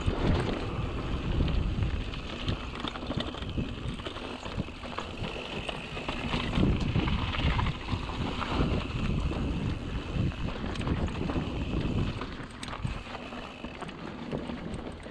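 Mountain bike rolling fast down a dry dirt and rock trail: wind rushing over the microphone, with the tyres crunching and the bike rattling and knocking over bumps.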